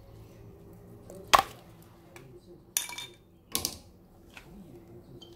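Pliers working a clear plastic fruit mould fitted around a pear: three sharp plastic-and-metal clicks and snaps, the loudest about a second in, two more close together near the middle.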